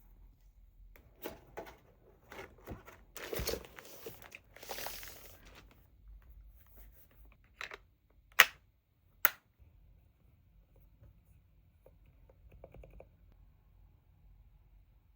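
Packaging being torn and crinkled for a few seconds, then two loud sharp clicks a bit under a second apart, and some faint rattling near the end.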